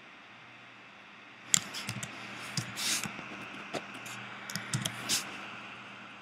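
Computer keyboard keys and mouse clicks: a sharp click about a second and a half in, then irregular taps and clacks until about five seconds in, over a faint low hum.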